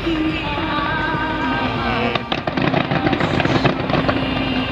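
Fireworks going off in dense, continuous bangs and crackles, over music with a held, wavering tone.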